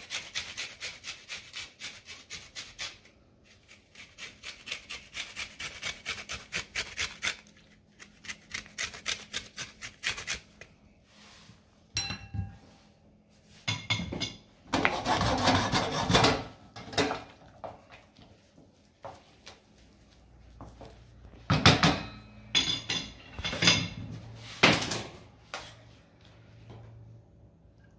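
Lime rind grated on a flat hand grater over a steel pan, in three runs of quick even rasping strokes, about four a second. Later, a metal utensil scrapes and knocks against the steel pan as the risotto is worked and served.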